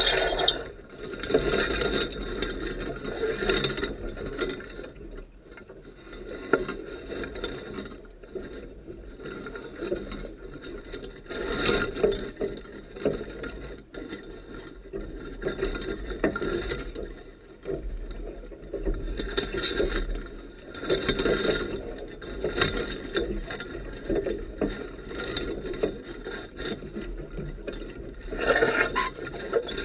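Squealing and scraping from a Sunfish sailboat's mast and its fittings as the boat moves, swelling and fading every few seconds.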